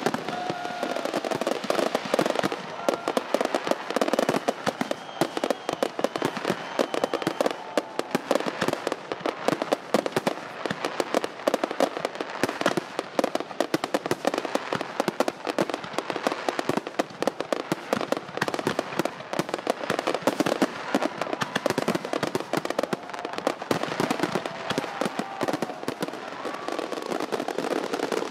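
Fireworks going off in a dense, continuous crackle of many sharp bangs and pops, with a few short whistling glides.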